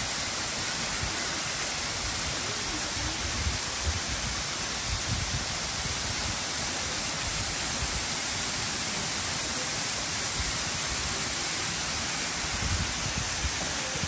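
A waterfall pouring onto rocks: a steady, even rush of falling water.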